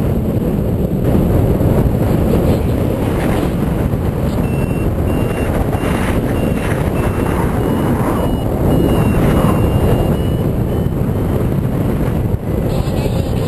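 Strong wind rushing over the microphone in flight under a paraglider. From about a third of the way in, a variometer adds a run of short, high, evenly spaced beeps, a sign that the glider is climbing in lift.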